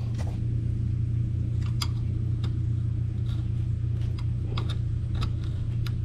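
A steady low mechanical hum with a few faint, light clicks of a small flat-blade screwdriver working at the crumbling rubber stub of an old door bumper stuck in its hole in the sheet-metal door jamb.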